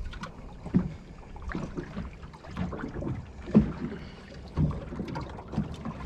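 Water slapping and knocking against the hull of a small drifting boat, in irregular bumps about once a second.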